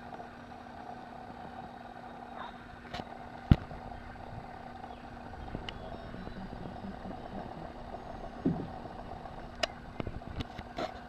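A steady mechanical hum with two constant tones, broken by a few sharp clicks, the loudest about three and a half seconds in and several more near the end.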